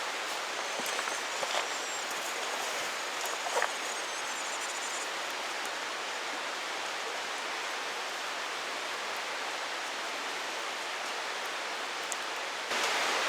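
Steady rushing of a mountain stream, with a few faint clicks and a brief faint high trill in the first few seconds.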